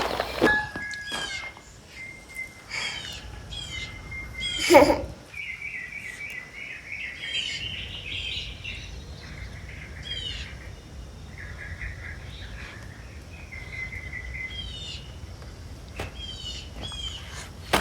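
Songbirds singing outdoors: repeated quick falling chirps, held whistled notes and trills. A brief louder sound with a falling pitch cuts in about five seconds in, and a few sharp clicks come near the end.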